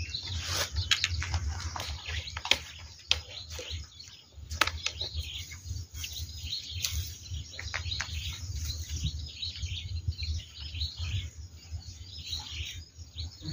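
Small birds chirping and calling, with scattered sharp clicks and a low steady rumble underneath.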